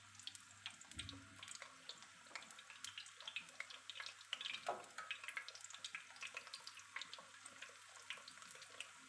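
Tempura-battered zucchini slices frying in hot oil in a pan: a faint, steady sizzle with many small scattered crackles and pops.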